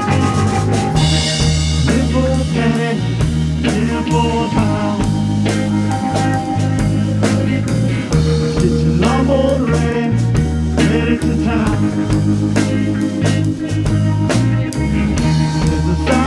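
Rock music with a steady drum beat, a bass line and guitar.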